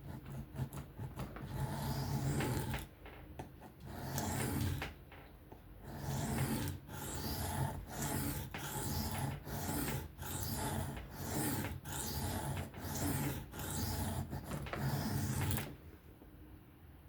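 Steel knife blade being stroked freehand across a diamond sharpening plate: rasping, grinding strokes, a few slower ones and then a steady run of about ten strokes roughly one a second, stopping near the end. The grinding is the edge being worked to raise a burr on tough 14C28N steel.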